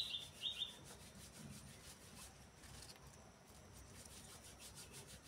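A small bird chirping in a quick series, about two short high calls a second, which stops about a second in. After that only faint rubbing and rustling is heard.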